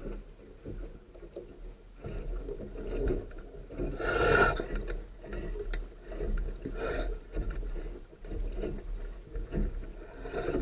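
Water rushing and splashing along the hull of a Sunfish sailboat under sail, an irregular wash that surges and eases, loudest about four seconds in.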